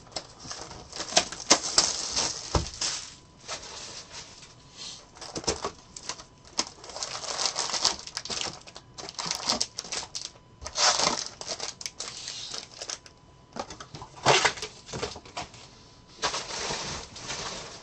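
Foil-wrapped 2022 Bowman Draft baseball card packs crinkling and clacking as they are pulled out of the opened cardboard hobby box and stacked, in a run of short rustling bursts with sharp clicks.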